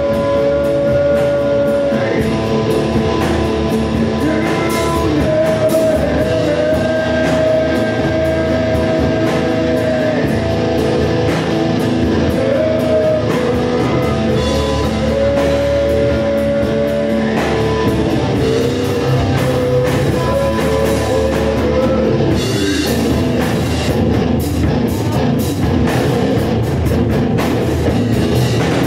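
Live rock band playing, with distorted electric guitar, bass guitar and a drum kit. Long held melodic notes sit over the top until about two-thirds of the way through. After that the drums and cymbals come to the front.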